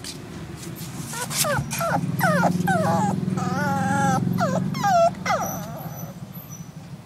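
Terrier-cross puppy whimpering in a run of about eight short, high-pitched whines and yelps that bend in pitch, starting about a second in and stopping about five seconds in. A steady low hum runs underneath.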